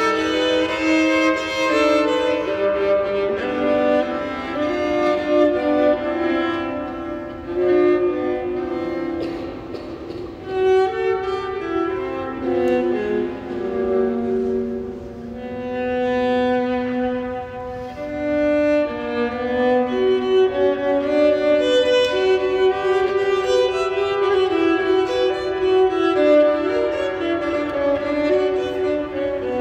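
Solo viola bowed in a large stone cathedral, playing long held notes that move from pitch to pitch.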